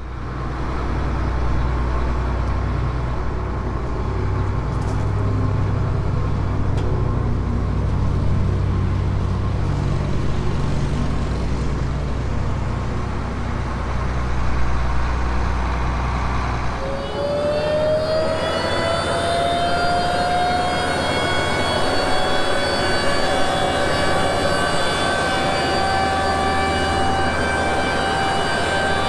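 Tractor engine running at a low steady speed, then a little over halfway through the pitch rises into a higher, steady whine as it is throttled up, typical of running the tractor's hydraulics to unfold a planter.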